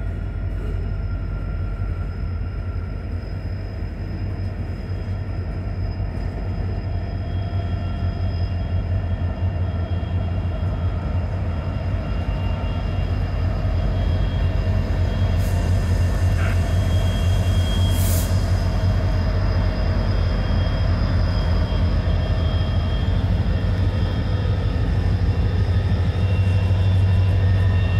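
Freight train rolling past: freight cars at first, then Norfolk Southern diesel-electric locomotives, whose engines' low rumble grows louder in the second half. Thin steady high tones sound over it throughout, with a brief sharp hiss about two-thirds of the way in.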